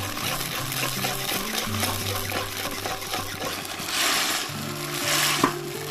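Mapo tofu sauce bubbling and sizzling in a wok over a wood fire, swelling louder about four seconds in and again near the end. A sharp click comes about five and a half seconds in. Background music plays throughout.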